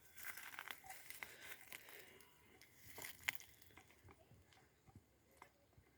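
Near silence with faint rustling and scattered small clicks, one sharper click about three seconds in.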